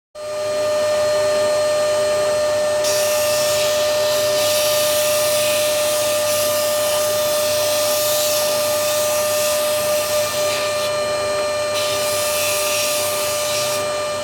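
Electric power tool motor running steadily with a constant high whine; a louder rushing hiss joins about three seconds in, eases briefly near eleven seconds, then returns.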